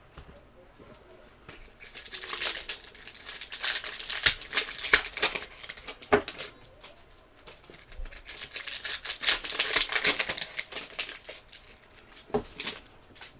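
Trading-card pack wrappers crinkling and tearing open and cards being handled, in two crackly bouts with a few light knocks.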